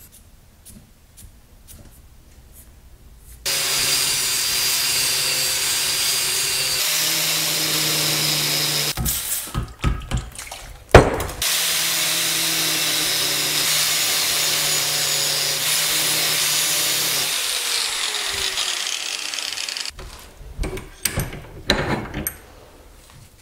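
An angle grinder grinds the steel head of a hatchet clamped in a vise. It starts about three seconds in after a few soft marker strokes and runs steadily. It breaks off briefly in the middle with some knocks and one sharp knock, grinds again, then winds down with a falling pitch. Near the end come rag-wiping rubs and handling knocks.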